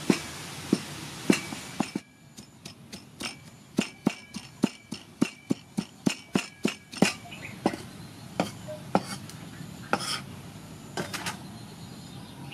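A knife, then a cleaver, chopping tomatoes on a wooden chopping block: sharp knocks of the blade striking the wood. They come about two a second at first, then in a quick run of three to four chops a second, then slow to an occasional knock. The steady background hiss drops away about two seconds in.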